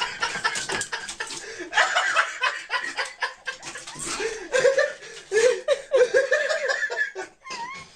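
People laughing hard in repeated chuckling bursts, tailing off near the end.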